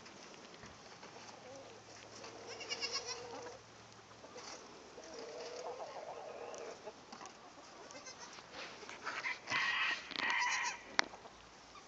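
Goats bleating several times, the two loudest calls close together near the end, followed by one sharp knock.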